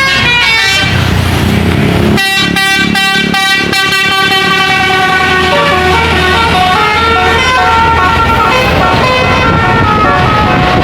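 Bus 'telolet' multi-tone air horn playing a melody of stepping notes, with a run of quick repeated notes from about two to four seconds in. A bus engine runs underneath.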